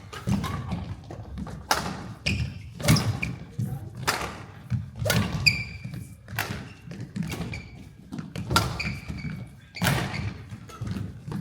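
Badminton singles rally: the racket strikes the shuttlecock about once every second or so, alongside thuds of footwork and short, high squeaks of court shoes on the floor.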